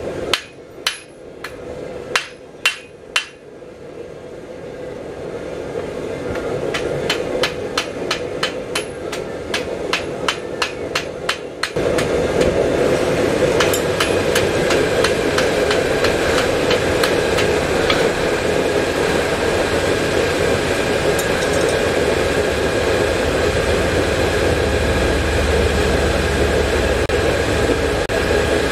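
Hand hammer striking a red-hot steel bar on an anvil to draw out a forged hummingbird's beak: a few single blows, then a run of quick strikes at about three a second. About twelve seconds in, a loud steady rushing noise starts abruptly and holds, with lighter hammer strikes over it for a while.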